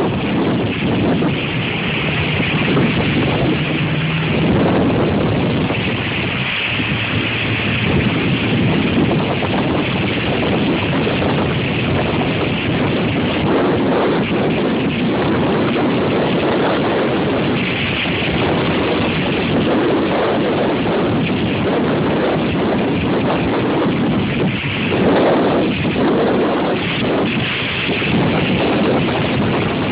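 Strong storm wind blowing over a phone's microphone: a loud, continuous rush that swells and eases with the gusts.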